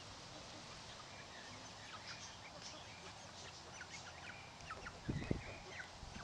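Young chickens foraging: scattered short, high cheeps that come thicker from about two seconds in, with a brief low bump about five seconds in.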